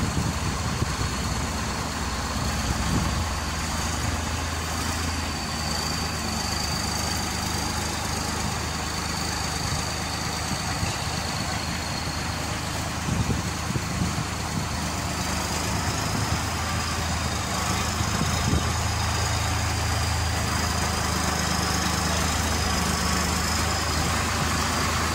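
New Holland T480B tractor's diesel engine running steadily at low revs as the tractor moves slowly; the engine note grows a little louder about two-thirds of the way through.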